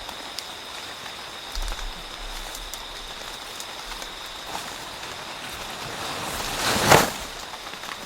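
Rain falling steadily, with scattered drips. A steady high tone runs underneath, and a rushing noise swells and peaks about seven seconds in.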